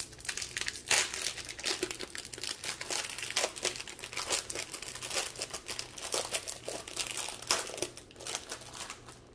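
Thin plastic packaging holding diamond-painting drill bags being handled and opened, a continuous crinkling and crackling that stops near the end.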